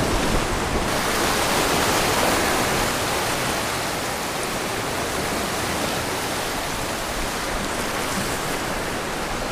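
Steady rushing wash of surf breaking against the lava-rock shoreline.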